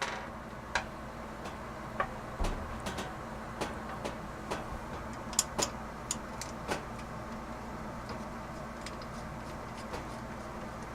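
Small, irregular metal clicks and taps as dropout bolts and washers are handled and threaded by hand into a BMX frame's dropout slots. The clicks come mostly in the first seven seconds, then give way to a faint steady hum.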